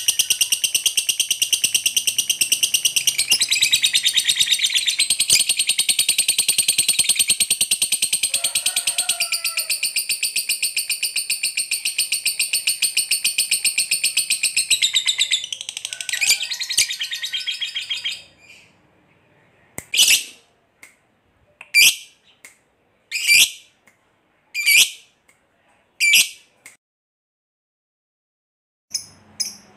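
Lovebird giving a long 'ngekek': a continuous, rapid, high-pitched chattering trill that runs for about eighteen seconds. It then breaks off into about five single sharp chirps roughly a second and a half apart, and after a short pause the chirping starts again near the end.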